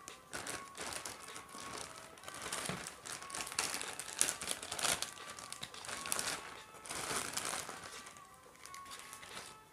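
Clear plastic bag crinkling as it is handled and pulled open, in irregular bursts that thin out near the end.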